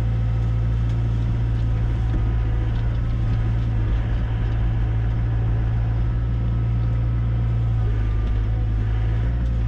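Hyundai HX85A excavator's diesel engine running steadily as the machine digs, with an even low hum.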